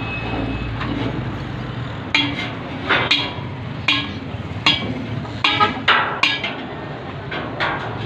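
Repeated sharp knocks at irregular intervals, about a dozen, starting about two seconds in, over a steady low hum.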